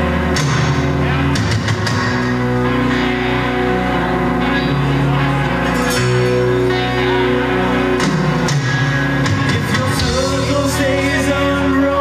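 Live rock band playing loud and steady: electric guitar chords over bass and drums, changing chord every few seconds, recorded from the audience in a club room. A voice comes in near the end.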